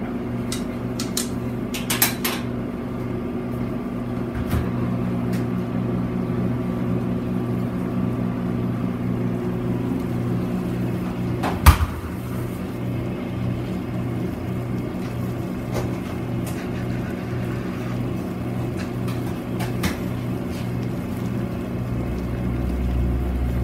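Steady electrical hum of commercial kitchen equipment, with a few light clicks and one sharp knock about twelve seconds in, while a saucepan of glass noodles boils on a gas range.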